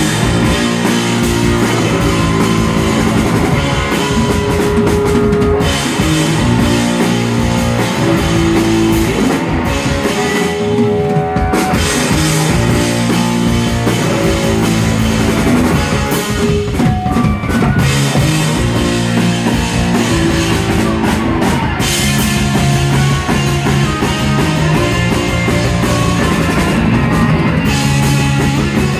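A live rock band playing loudly: electric guitars over a drum kit.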